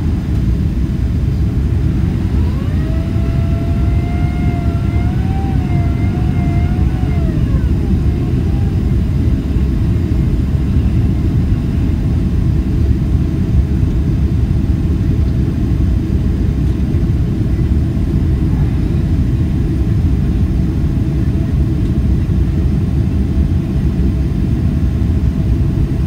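Steady cabin noise of a Boeing 767-300ER descending on approach with its flaps extended: a loud, even rush of engines and airflow heard from a window seat. About two seconds in, a faint wavering tone with overtones rises in, holds for about six seconds and fades.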